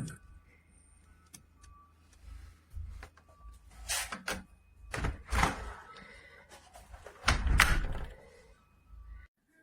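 A door being handled: a sharp click at the start, then a few scraping, brushing noises and the loudest thud-and-scrape near the end.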